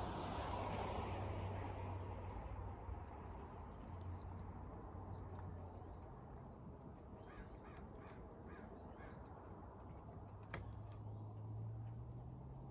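Faint outdoor ambience with a low steady hum, and birds calling now and then in short chirps. There is a single sharp click about ten and a half seconds in.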